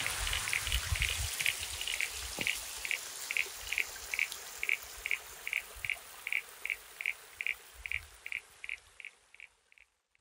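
Outdoor ambience of trickling water with a high chirp repeating about two or three times a second, all fading out near the end.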